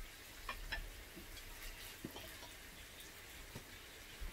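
Faint, scattered light clicks and taps of chopsticks and tongs against bowls, plates and the tabletop grill plate, about half a dozen over a few seconds.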